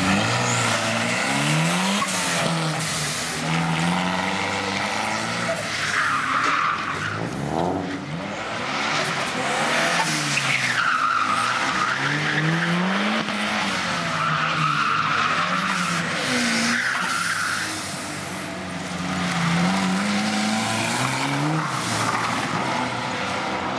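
Ford Capri with a Cosworth 2.0 16-valve turbocharged four-cylinder engine revving hard, its pitch climbing and dropping again and again as it accelerates and lifts. The tyres squeal several times in the slides.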